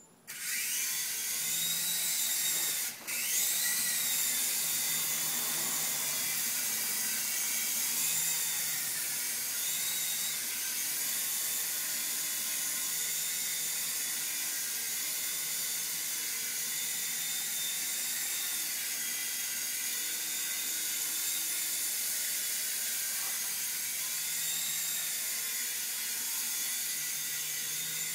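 Small indoor RC helicopter's electric motors and rotors whining steadily in flight after spinning up at the start, the pitch wavering slightly with the throttle. The whine drops out for a moment about three seconds in.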